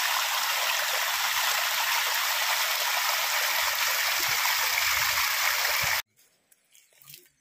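Water gushing from two pipe outlets and splashing into a concrete tank: a loud, steady rush that cuts off suddenly about six seconds in.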